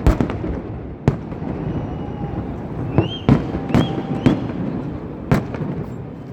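Fireworks going off: about seven sharp bangs at uneven intervals over a steady background haze, with a couple of brief whistling tones around the middle.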